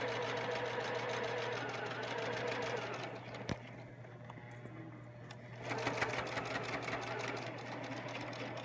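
Pfaff ClassicStyle Quilt sewing machine stitching a seam at a steady speed. It stops with a click about three and a half seconds in, pauses for about two seconds, then sews again.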